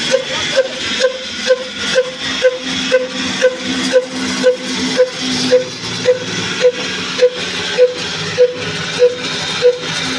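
Old single-cylinder Ruston Hornsby diesel oil engine running slowly, with a sharp exhaust beat about twice a second that gradually slows.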